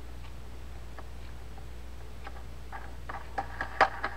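Light clicks of small baitcasting-reel parts, the star drag adjuster among them, being fitted onto the reel by hand. There are a few faint clicks at first and a quicker run of sharper clicks near the end, over a low steady hum.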